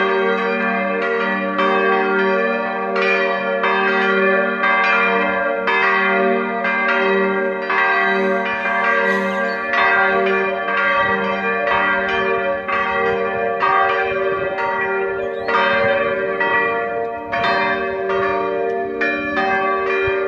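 Church bells ringing: several bells struck in an uneven, overlapping sequence, roughly every half-second, their tones blending into a continuous peal.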